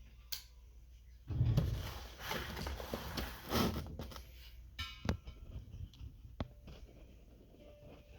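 Packaging being handled during an unboxing: about three seconds of rustling, with a few separate knocks and clunks.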